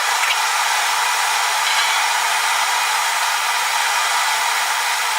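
Blacksmith's forge blower running steadily flat out, a constant rush of air forced through the fire to bring the steel up to heat.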